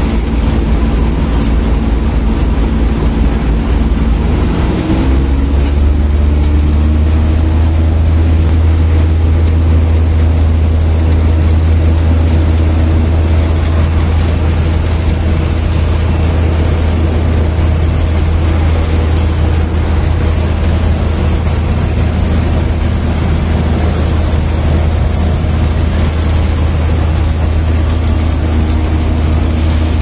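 Combine harvester running while it cuts wheat, heard from inside the cab: a loud, steady engine drone with machinery hum. About five seconds in, the engine note climbs and then holds steady.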